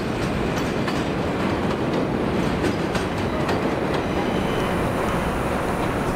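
NYC subway train of R160 cars running on elevated track, with a steady rail rumble and the clickety-clack of wheels over rail joints and switches, most of the clicks in the first second and around three seconds in.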